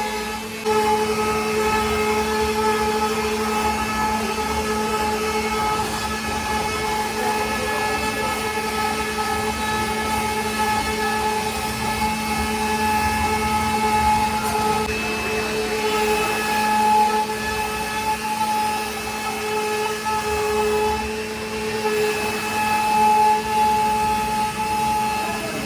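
CNC router spindle running steadily with a constant high whine and hum while it cuts wood, the cutting noise swelling and easing a little as the bit moves.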